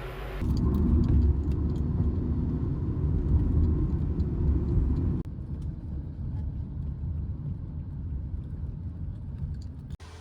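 Low, steady rumble of road traffic or a vehicle, in two clips cut together: louder in the first half, then quieter after an abrupt change about five seconds in.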